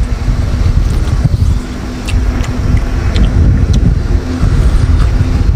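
A loud, steady low engine rumble with a faint steady hum, typical of a motor running close by. A few small clicks of shellfish being eaten can be heard over it.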